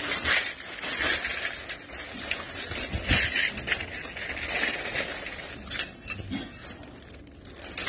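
Stainless-steel kitchen utensils (spoons, ladles, wire-mesh strainers, tongs) clinking and clattering against each other as they are rummaged through by hand inside a plastic bag, with the bag rustling. The clinks come irregularly throughout.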